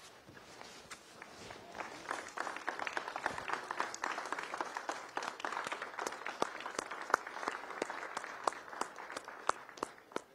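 A small crowd clapping. It begins with a few scattered claps, swells into steady applause about two seconds in, and dies away near the end.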